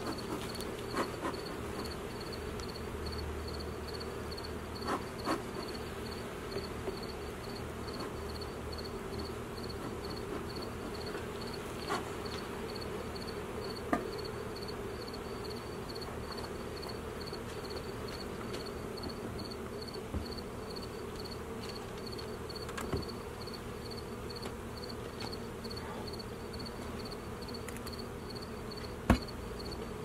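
Honeybee colony buzzing steadily around an opened hive, stirred up during the inspection. A high, evenly pulsing chirp runs underneath, and there are sharp knocks now and then from work on the hive boxes, the loudest near the end.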